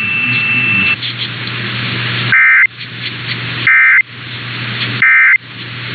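Three short bursts of Emergency Alert System end-of-message data tones, about 1.3 s apart, over steady radio hiss and a low hum. The bursts are the digital signal that the alert message has ended.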